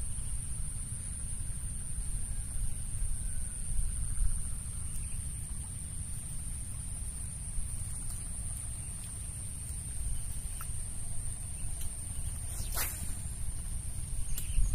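Outdoor wind rumble on the microphone with a steady high-pitched whine over it, and one short sharp swish about two seconds before the end as a fishing rod is cast.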